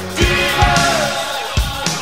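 Background music: a pop-rock song with singing over a steady drum beat.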